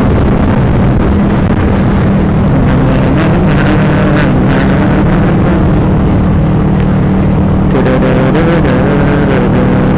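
Motorcycle engine running steadily under a constant rushing noise, its pitch wavering up and down briefly near the end.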